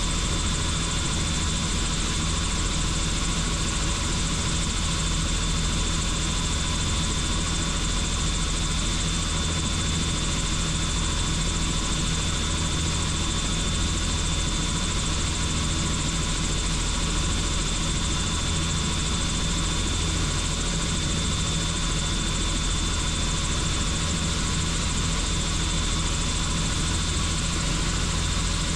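Helicopter in flight: steady rotor and turbine engine noise, with a thin high whine held over it.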